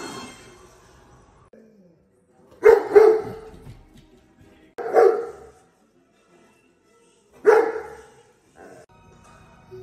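A dog barking: two quick barks about three seconds in, then two more single barks about two and a half seconds apart.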